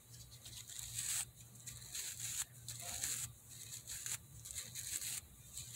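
A hairbrush drawn again and again through a doll's long synthetic hair, a scratchy hiss with each stroke, about one stroke a second.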